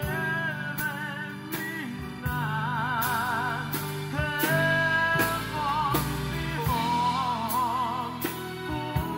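Live band music: a male vocalist singing a slow song, holding long notes with vibrato, backed by electric bass, keyboard and a drum kit keeping a steady beat.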